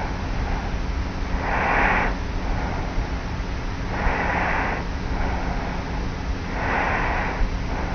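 Light, regular snoring breaths of a young woman asleep on her back, heard close from a tape recorder lying on the pillow. Three breaths, about one every two and a half seconds, over the recorder's steady low hum and hiss.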